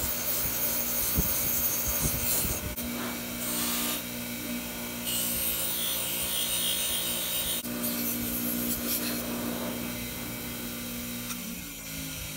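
Craftsman bench grinder running with a steady motor hum, while something held against its spinning wheel makes a scraping rub that comes and goes.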